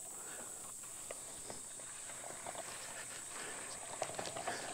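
Steady high-pitched insect drone over the pasture, with footsteps through grass and scattered light clicks and rattles of electric-fence gear (a polywire reel being unwound, plastic step-in posts being carried), busier near the end.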